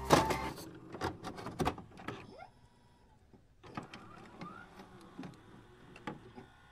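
Glitch-style transition sound effects: scattered clicks and short whirs, dropping out briefly about two and a half seconds in.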